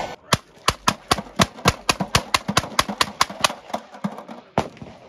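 Replica M1862 Gatling gun, hand-cranked, firing a rapid string of .58-calibre shots at about four a second, then one last shot after a short pause near the end.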